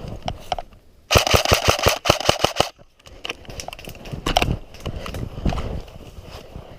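Airsoft electric gun firing a rapid full-auto burst of clicks, about ten a second, for a second and a half. It is followed by quieter scattered clicks and rustling.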